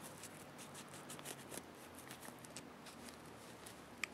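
Faint scrubbing and light scratching of a cleaning cloth rubbed around the ejector star of a Smith & Wesson 360 SC revolver's cylinder, with irregular small ticks and one sharper click near the end.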